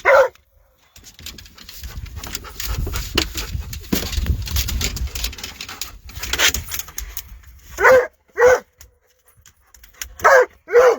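A dog barking in short, high yelps: once at the start, then four quick barks in the last three seconds, excited over a catfish being landed. Between the barks there is a stretch of low rumbling noise.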